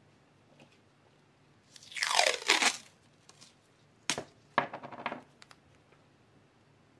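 Crinkling, crunching noise in two bursts: a loud one about two seconds in lasting about a second, then a sharp snap about four seconds in followed by a short crackle.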